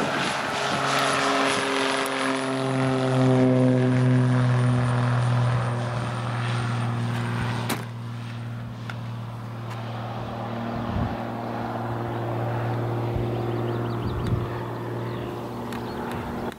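Single-engine Cessna's piston engine and propeller at full takeoff power as it lifts off and climbs away, a steady droning note that dips slightly in pitch over the first few seconds as the plane passes, then holds a little quieter. One sharp click about eight seconds in.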